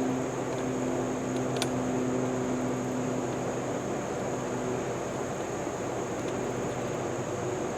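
Troy-Bilt 21-inch gas self-propelled lawn mower's small engine running steadily while mowing, with a single click about one and a half seconds in.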